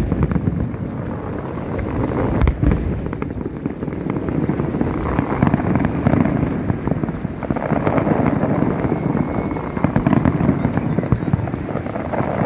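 Aerial fireworks display: a continuous barrage of shell bursts and crackle, with a sharp bang about two and a half seconds in.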